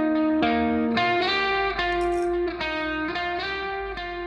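Background music: a melody of sustained notes changing about twice a second, fading out.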